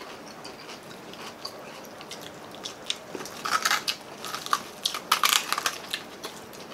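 Crispy fried chicken skin and crispy pata crunching as they are bitten, chewed and pulled apart, in two bursts of sharp crunches about three and a half and five seconds in, the second louder.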